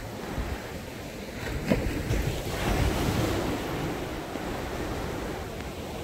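Sea waves breaking and running up a sand beach as foaming surf, swelling about two seconds in and then easing off.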